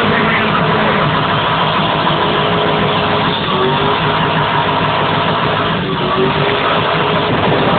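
Car engine running loud and steady during a burnout, its rear tyres spinning on the track, with brief small dips in level about three and six seconds in.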